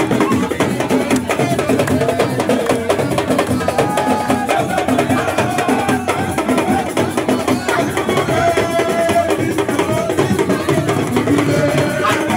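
Music with a steady drum and percussion beat.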